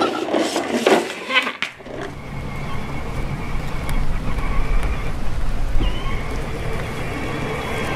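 Power Wheels Corvette Stingray ride-on toy car driving over dirt: the steady whine of its battery electric motor and gearbox over the rumble of its plastic wheels, starting about two seconds in.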